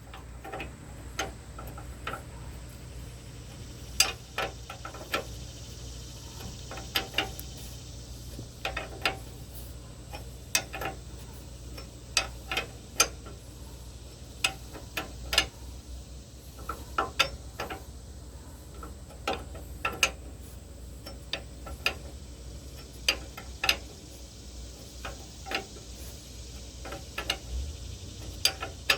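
Half-inch-drive hand ratchet clicking in short, irregular runs of sharp ticks as a lock nut is tightened onto an anti-scalp deck wheel bolt.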